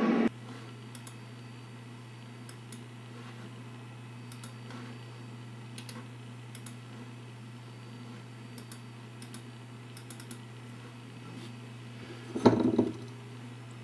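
Sparse, irregular light clicks like computer-keyboard keystrokes over a steady low hum, with a brief louder bump about twelve and a half seconds in.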